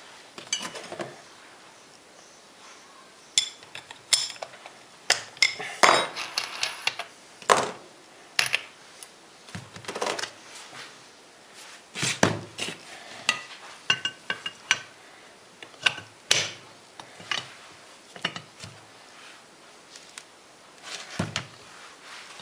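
Metal parts of a new Makita GA4530R angle grinder and its accessories being handled: irregular clinks, knocks and rattles, some with a brief metallic ring.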